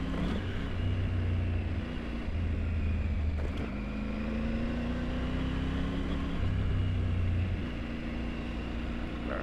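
Triumph Tiger 900 Rally Pro's three-cylinder engine running at a steady, low speed while the bike rides a rough gravel road, its pitch drifting slightly up and down, over steady tyre and road noise.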